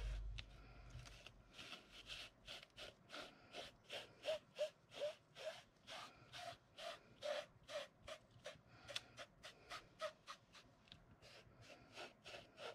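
Faint, quick rubbing strokes, about two to three a second, as a small applicator drags loose foil flakes back and forth over a sticky stencilled area on card, some strokes giving a small squeak. The flakes are being pressed into the adhesive to cover it.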